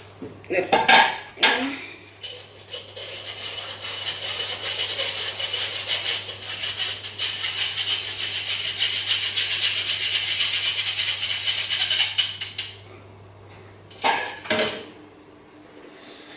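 A spatula scraping and knocking against a mixing bowl as sponge batter is worked out of it into a baking tin. There are a few sharp knocks at the start, then about ten seconds of rapid scratchy scraping, then two more knocks near the end.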